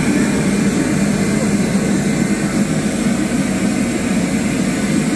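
Steady, unbroken test noise played loudly through a sound truck's loudspeakers while the system's frequency response is measured and tuned.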